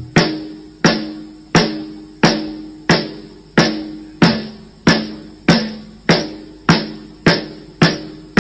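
Live rock band's drum kit pounding a steady beat, about three hits every two seconds, over a held low note, with no vocals.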